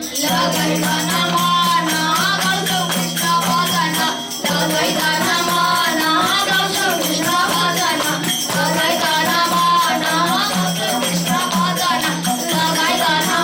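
Group of young boys singing a devotional bhajan together over a steady held drone, with jingling percussion keeping an even beat.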